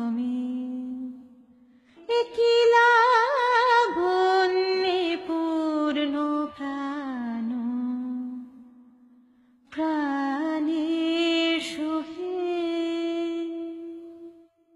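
Background song: a voice singing slow, drawn-out phrases with long held notes and two short pauses. The last note fades out near the end.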